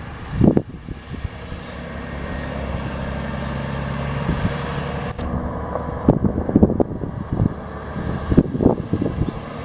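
Cummins 10-litre inline-six diesel of a Ford L9000 mixer truck running steadily, with a string of irregular low thumps in the second half.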